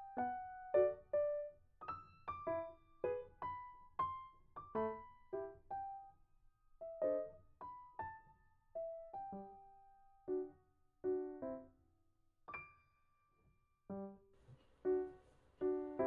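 Background music: a gentle solo piano melody of single notes and small chords, each struck and left to ring out.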